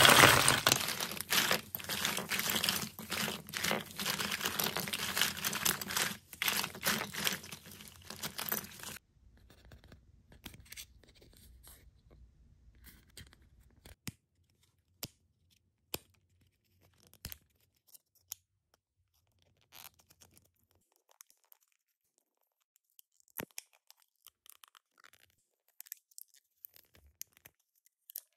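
Plastic packaging crinkling and rustling loudly for about the first nine seconds. Then it goes quiet but for scattered faint clicks and taps of long fingernails on the small plastic blister pack of a miniature PEZ dispenser toy.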